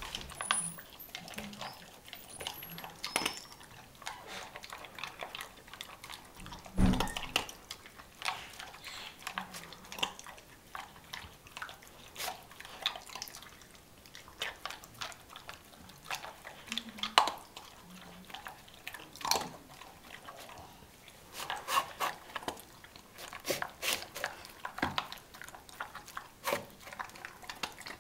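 A Border Collie eating kibble mixed with yogurt from a bowl: irregular crunching and clicking of the kibble against the bowl, with wet licking. A louder knock comes about seven seconds in.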